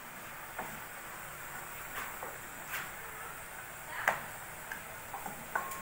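Pots, lids and utensils handled at a kitchen stove: several scattered sharp knocks and clinks, the loudest about four seconds in, over a steady hiss.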